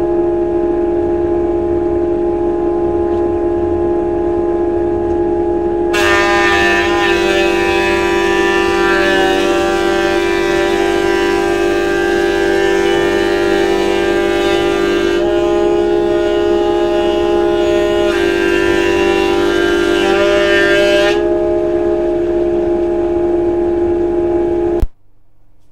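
Thickness planer running with a steady hum, joined by the chip extractor's drone through its duct. From about six seconds in a pine board is fed through and the cutterblock adds a loud cutting hiss for about fifteen seconds, easing briefly partway; the sound cuts off abruptly near the end.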